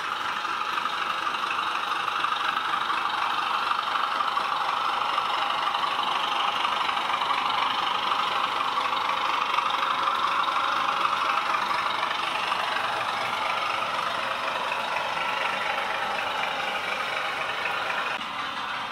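Model diesel locomotive running on a model railway layout: a steady engine sound from its sound decoder, mixed with the running noise of the train on the track, which drops off a little near the end.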